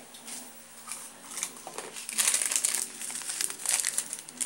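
A small plastic seasoning sachet crinkling in the hand as it is opened, in irregular crackly bursts that are loudest about two seconds in.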